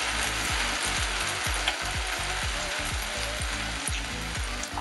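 Stir-fried flat rice noodles with beef, bean sprouts and chives sizzling steadily in a hot frying pan.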